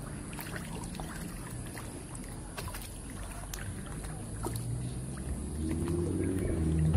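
Water sloshing and splashing with scattered small ticks as a crowded school of catfish thrashes at the surface. A low, steady engine hum comes in about five seconds in and grows louder.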